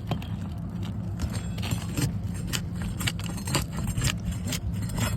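Roof shingles being pried loose to get at their nails: a quick run of irregular sharp clicks, crackles and scrapes, over a steady low rumble.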